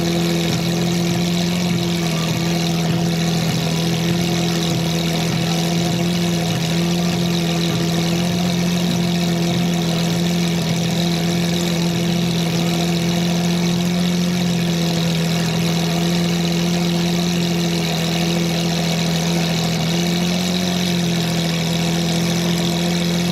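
Lamborghini Aventador's V12 engine idling steadily, an even, unchanging hum with no revving.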